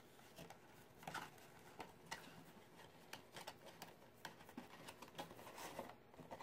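Faint rustling and light, irregular taps of cardstock being folded, as the flaps of a paper baker's box are tucked into their slots and the box is pressed into shape.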